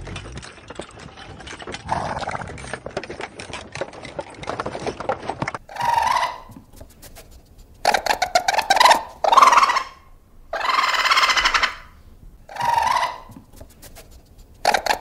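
An animal calling: five short, harsh calls of about a second each, starting about six seconds in. Before them a steady crackling rustle.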